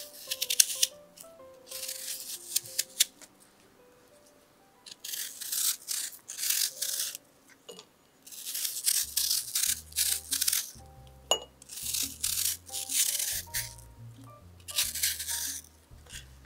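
Paring knife peeling the skin off apple quarters: a run of crisp scraping strokes, each lasting a second or two, with short pauses between, and one sharp click about eleven seconds in. Soft background music plays underneath.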